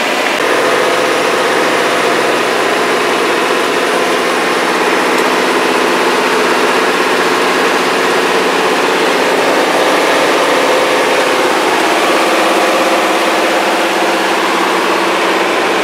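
Fire truck's engine running steadily as the truck drives, heard from inside the cab.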